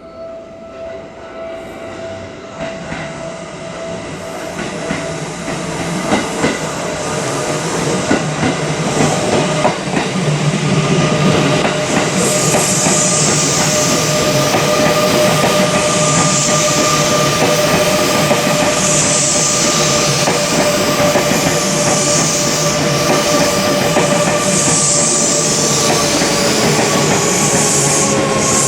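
Seibu 2000 series electric train approaching and running past, growing louder over the first twelve seconds or so and then staying loud. Steady high tones sink slowly in pitch throughout, with wheel clatter and a hiss that swells and fades about every three seconds.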